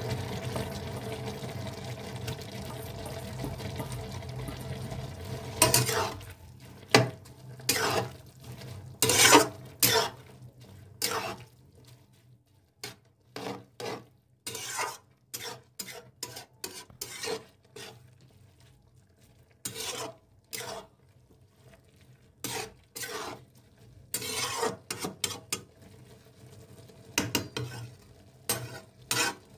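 Spatula scraping and stirring in a metal kadai, tossing boiled Maggi noodles with vegetables in the last of the cooking liquid: irregular scrapes, about one or two a second, starting about six seconds in. Before that, a steady simmering hiss from the pan.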